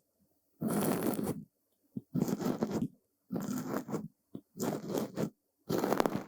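Brush bristles sweeping over a surface close to the microphone: five even strokes, each just under a second long, with short silences between.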